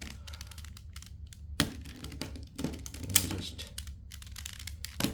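3x3 plastic speed cube being turned, its pieces clicking and clacking in quick, irregular runs of turns.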